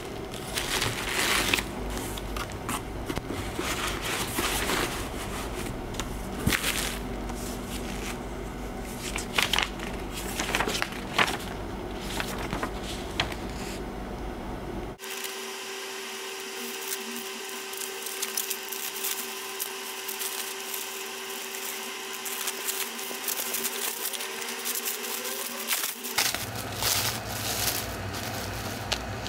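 Bubble wrap, paper and a plastic bag crinkling and rustling in the hands as a parcel is unpacked, over a steady background rumble. About halfway the rumble cuts out suddenly, leaving a steady hum with fewer crinkles, and near the end the crinkling and rumble return.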